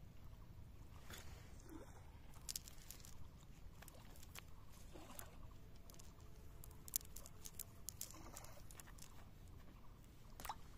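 Faint, scattered clicks and rustles of a nylon fishing net being handled as small fish are picked out of its mesh.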